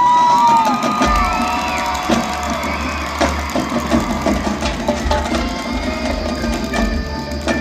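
High school marching band playing: loud held wind and brass notes that swoop up and down in the first couple of seconds, over the drumline and bass drums keeping a steady beat with sideline percussion.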